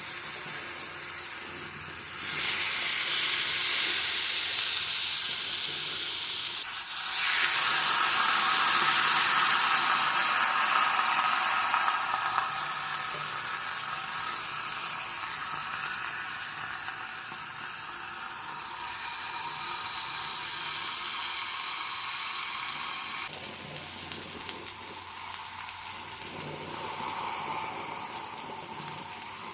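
Food sizzling as it fries in a pan, a steady hiss that grows louder about two seconds in and again about seven seconds in, then settles back.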